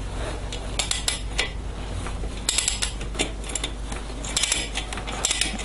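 Irregular metallic clicks and clinks of a 19 mm wrench or socket working on the steel cylinder-head bolts of an IZh-49 motorcycle engine, undoing them to remove the head.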